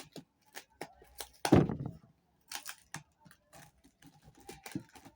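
Sealed cardboard box being worked open by hand: scattered crinkles, scrapes and clicks of cardboard and tape, with one louder rustling knock about a second and a half in.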